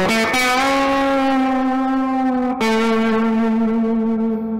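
Intro music on an electric guitar through effects: a quick rising slide into a long held note, then a second note struck about two and a half seconds in and left to ring.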